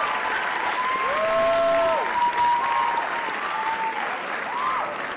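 Audience applauding and cheering, with several long, drawn-out whoops over the clapping.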